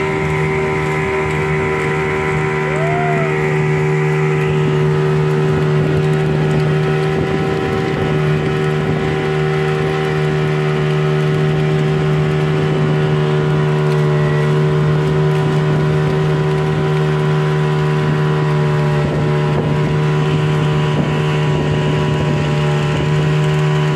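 Small passenger boat's engine running steadily at cruising speed, heard from on board, with a constant low hum and overtones that do not change.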